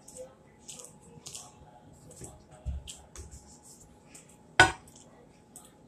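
Close-miked eating sounds at a meal of fried fish: chewing and wet mouth clicks, with light handling of food and foil, and a couple of soft thuds near the middle. About four and a half seconds in comes one sudden, much louder sharp sound.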